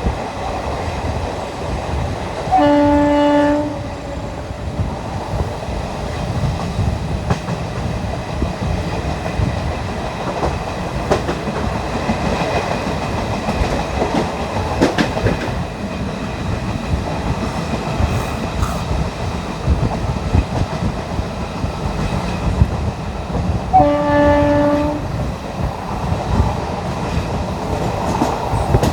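ICF coach wheels running over the rail joints with a steady rumble and clickety-clack, while the WCAM2 electric locomotive's horn sounds twice, each blast about a second long: once about three seconds in and again near the end.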